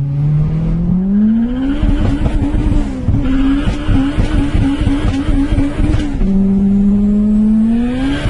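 Car engine heard from inside the cabin under hard acceleration. The revs climb, then hold at the top with a stutter about three times a second. About six seconds in they drop with an upshift and climb again.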